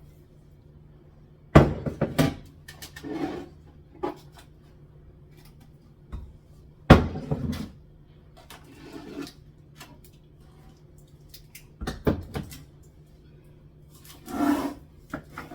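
Kitchen cupboard contents being taken out and set down: a scattered series of knocks and clatters of containers and jars, the loudest about a second and a half in and about seven seconds in.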